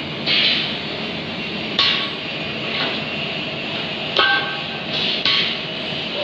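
Steady industrial din of mill-house machinery broken by sharp metallic clanks, five in all at uneven intervals of about one to two seconds. A couple of them ring briefly, like struck steel.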